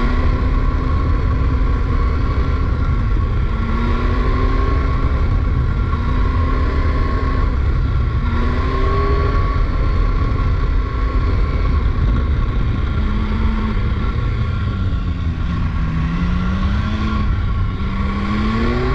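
Motorcycle engine heard from the rider's seat, rising in pitch under throttle and dropping back several times as the bike accelerates and eases off through bends, over a heavy, steady rumble of wind on the microphone.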